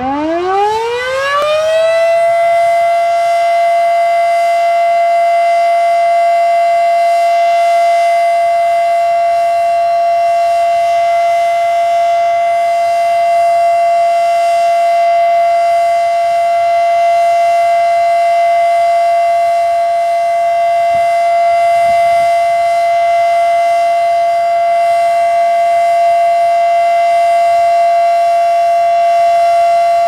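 GCS Model 3 outdoor warning siren winding up, its pitch rising over the first two seconds, then holding one steady, loud tone: the steady alert signal, sounded as a test.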